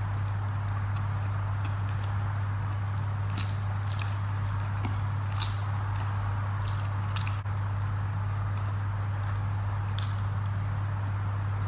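Close-up eating sounds: wet chewing with sharp mouth clicks every second or so, and the squish of rice and curry worked by hand on a plate, over a steady low hum.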